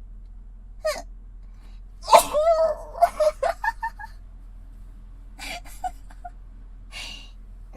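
A woman's sneeze, rather big and full-force: a short sharp intake just under a second in, then a sudden loud voiced sneeze about two seconds in, followed by short catches of breath and voice and fainter breathy sounds. It is picked up close on a KU100 binaural dummy-head microphone.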